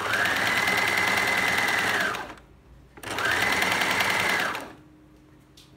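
Small domestic electric sewing machine stitching in two runs, about two seconds and then about a second and a half, with a short pause between. The motor whine rises as each run starts and drops away as it stops, over a rapid, even needle rhythm.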